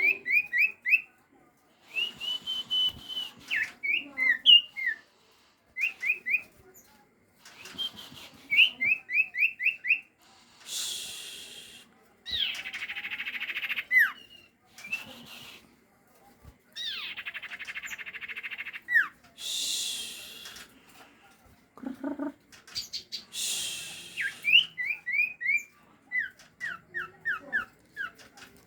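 Sirtu (cipaw) bird calling loudly: quick runs of short down-slurred notes, alternating with long harsh hissing stretches, the calls used as a lure to draw in others of its kind.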